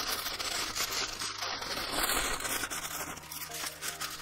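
Aluminium foil being crumpled and shaped by hand, with continuous dense crinkling and crackling.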